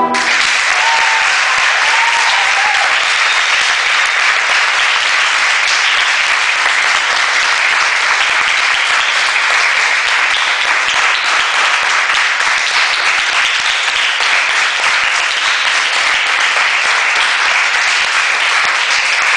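A small group of onlookers clapping, a dense patter of many hands held at a steady level throughout.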